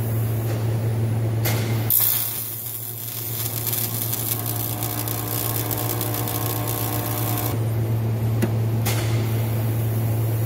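Electric arc welder welding cracks in the aluminum hull ribs, the arc hissing and crackling in two runs: one from about two seconds in to past seven seconds, and another starting near nine seconds. A steady low hum runs underneath.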